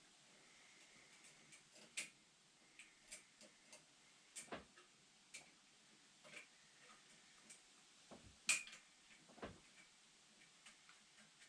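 Scattered light clicks and taps at an irregular pace, the sharpest about two seconds in and just past eight seconds: small metal parts and hand tools being handled while fuel-line fittings are fitted on an engine.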